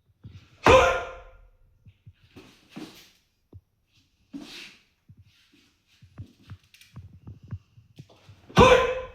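A martial artist's two loud, sharp shouted exhalations, one near the start and one near the end, each cut off quickly and fading briefly. Between them come fainter forceful breaths and light scuffs.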